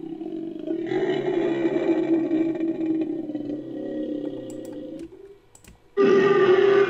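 Designed monster creature call, layered from animal and monster sound effects: a long, rough, low-pitched vocalization held for about five seconds that tails off, then after a short pause a second, louder call starts near the end.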